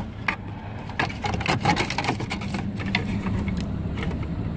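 Irregular light clicks and knocks of plastic steering-column trim being handled and clipped back in place, over a steady low hum.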